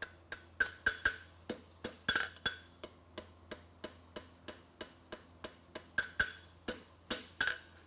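Farrier's hammer striking a red-hot steel horseshoe bar on an anvil in a steady rhythm of about three to four blows a second, some blows ringing briefly off the anvil, while he squares up the end of the shoe. A faint steady low hum runs underneath.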